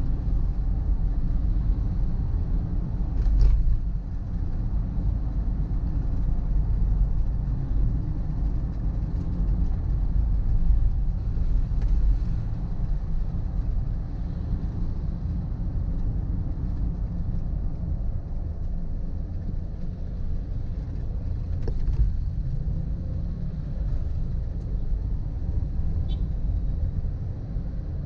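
Steady low rumble of a road vehicle on the move, with a couple of brief faint knocks, one about three and a half seconds in and one later on.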